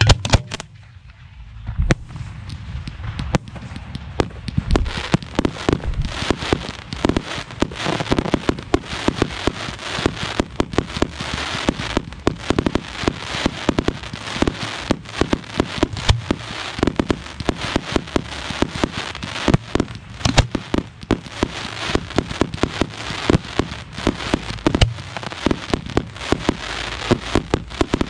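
Professional 1.3G fireworks shells firing from mortar racks and bursting, heard from close to the racks. Two sharp bangs come first, then after a short lull a dense, continuous barrage of bangs, several a second, from about two seconds in.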